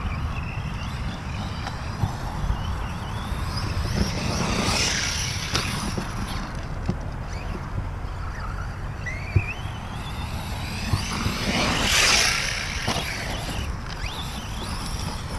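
Reely Raptor 6S electric RC truck on a 4S battery driving over a loose dirt track. Its brushless motor whines and its tyres scatter gravel, loudest as it passes about five seconds in and again about twelve seconds in, with a rising whine as it speeds up shortly before the second pass. Wind rumbles on the microphone throughout.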